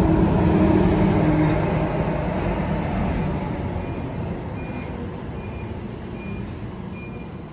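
A large road vehicle's engine running close by, with a low steady hum, loud at first and fading gradually over several seconds. From about halfway, faint short high beeps repeat a little faster than once a second.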